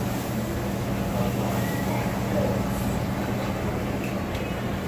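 Buffet restaurant room noise: a steady low hum under a constant background din, with faint voices in the background.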